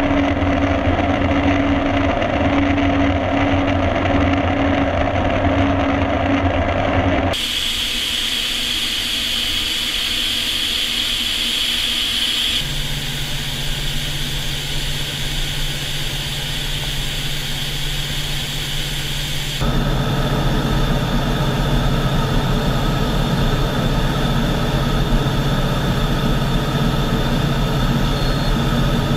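Steady cockpit noise inside a U-2 Dragon Lady at high-altitude cruise: the drone of its General Electric F118 turbofan and rushing air, with a few held whining tones. The tone of the noise shifts abruptly three times.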